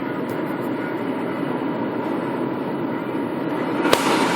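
Steady road and engine noise inside a 1998 Dodge Durango driving on snow-covered roads, with one sharp click near the end.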